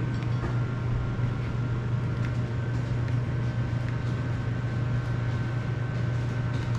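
A steady low hum with faint steady higher tones above it, unchanging throughout, and a few faint clicks.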